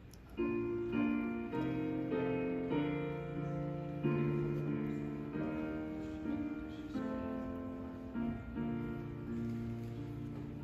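Piano music starting about half a second in: a slow run of held chords, each changing every second or so.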